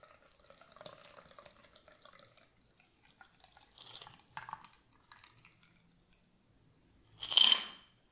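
A cocktail trickling from a cobbler shaker's strainer cap into a martini glass, a faint thin pour with a light ringing tone. Near the end comes a single loud, ringing clink.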